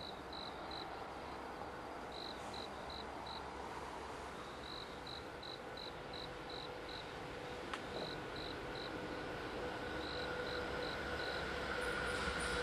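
Insects chirping in quick groups of three or four. Under them is a faint steady hum with a held tone that grows louder toward the end as an EF81 electric locomotive hauling a container freight train approaches.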